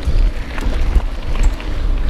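Wind buffeting the microphone of a GoPro action camera during a fast mountain-bike ride, a heavy uneven rumble, with tyre noise and scattered clicks and rattles from the bike on the trail.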